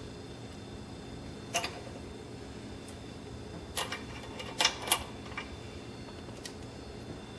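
Sharp metal clicks and clinks as rocker arms and their bolts are handled and set down during removal from a 5.9 Cummins 24-valve cylinder head. The clicks come one at a time, with several close together a little past the middle.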